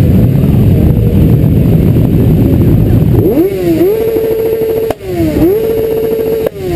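Several motorcycle engines running at low speed in a slow-moving pack. From about three seconds in, one engine is revved repeatedly: its pitch rises, holds for about a second, dips and rises again.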